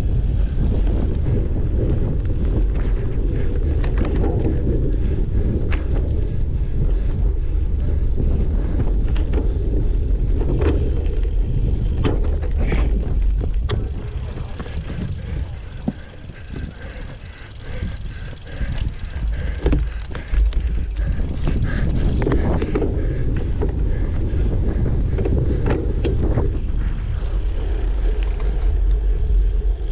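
Wind buffeting the microphone over the rattle of a cyclocross bike riding rough ground, with scattered sharp knocks. The noise drops for several seconds in the middle, then picks up again.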